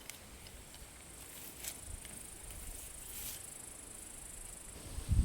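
Insects chirring steadily in a high-pitched hiss, with a few faint clicks. The chirring fades shortly before the end, when some low thuds come in.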